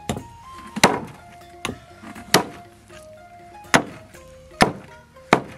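A heavy meat cleaver chopping pork knuckles on a thick wooden stump chopping block: about seven sharp whacks, a little under a second apart. Background music plays under the chopping.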